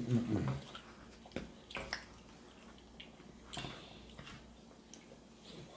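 Quiet eating sounds: scattered wet mouth smacks and chewing clicks, with soft taps of spoons in paper bowls.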